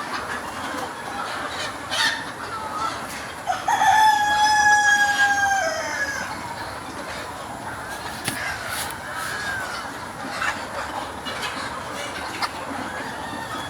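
A rooster crows once, a long call starting about three and a half seconds in, held steady and then falling away at the end. Hens cluck with short calls around it.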